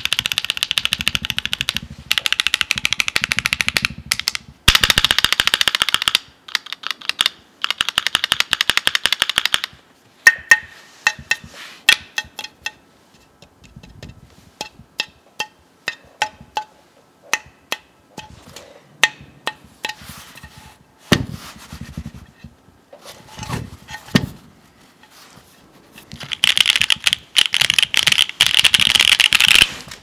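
Typing on a Keychron Q2 aluminium keyboard with 43 Studio OP Black linear switches, GMK Modern Dolch2 keycaps and a polycarbonate plate. Fast, continuous typing for the first nine seconds or so, then slower, separate keystrokes, then a fast run of typing again near the end.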